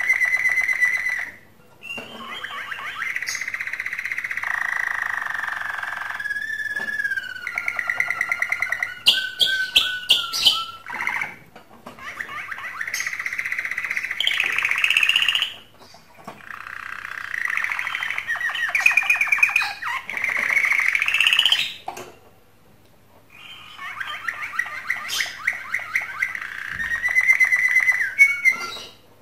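Male domestic canary singing its courtship song in breeding condition: long phrases of rapid trills and rolls, with a few short pauses between them.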